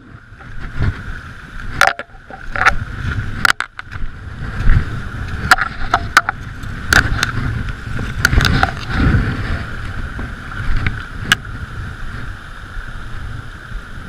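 Steady rush of a fast, shallow river current, with a low rumble that comes and goes and scattered sharp clicks and knocks as the landing net and body-worn camera are handled.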